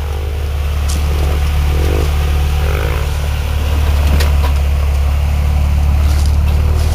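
2001 Jeep Grand Cherokee engine running with a steady low drone while crawling off-road, with a few sharp clicks and knocks.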